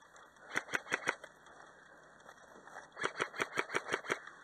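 Two rapid volleys of airsoft gunfire, sharp cracking shots: about five shots half a second in, then about eight more around three seconds in.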